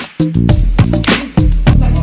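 Background music with a steady beat, strong bass and drums.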